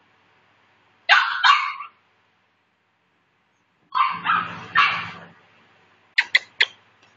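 Maltese puppy yapping playfully as it tussles with a hand: two barks about a second in, three more around the middle, and three short quick yips near the end.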